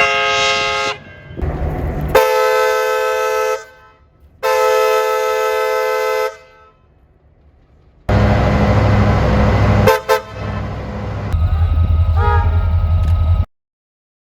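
A multi-tone train air horn sounds three blasts, each a second or two long, its notes held together as a chord. After a short pause comes a train's running rumble with a low drone and a couple of sharp clicks, which cuts off suddenly.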